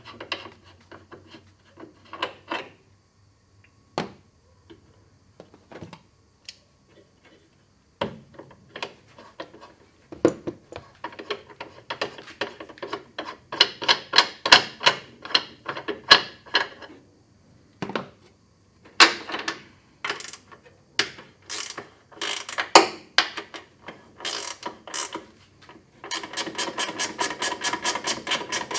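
Hands and tools working the hose fittings on an engine-bay oil catch can: irregular small metallic clicks and knocks, then quick, even clicking, about seven a second, near the end.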